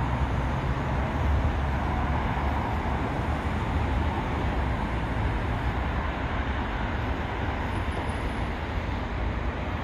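Jet noise from a Boeing 737-800's CFM56-7B turbofans as the airliner climbs away after takeoff: a steady low rumble with a hiss above it, slowly fading.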